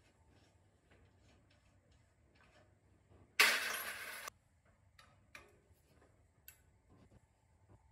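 Faint, scattered clicks and clinks of hand tools working on metal parts. About three and a half seconds in comes a loud, even hiss lasting about a second that starts and cuts off abruptly.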